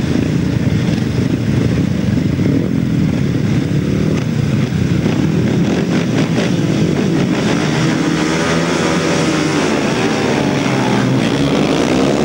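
Several grasstrack sidecar outfits' engines revving together on the start line, then accelerating away from the start after about seven seconds, their pitch rising and sweeping as they pull off.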